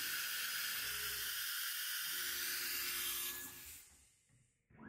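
Compressed air hissing steadily out of the HITECO QD-1F ATC spindle's taper during an automatic tool change, with the power drawbar released. It cuts off about three and a half seconds in, and a brief short sound follows near the end.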